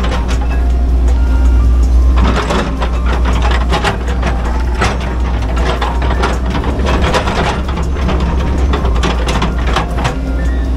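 Excavator diesel engine running steadily under hydraulic load, with the steel bucket repeatedly scraping and clattering through loose soil and stones.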